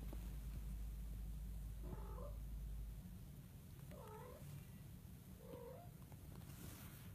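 Young Scottish Fold kitten mewing three times, short wavering high calls about two seconds apart, over a steady low hum.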